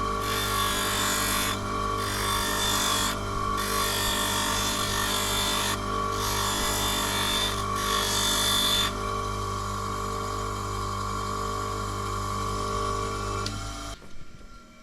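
A small power tool's motor running steadily while it grinds or files in several short passes of one to two seconds each. It then runs free for a few seconds and is switched off, winding down near the end.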